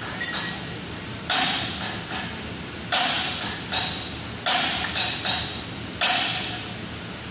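Metal tapping on the underside of a car engine: four sharp, ringing strikes about a second and a half apart, each followed by a fainter tap.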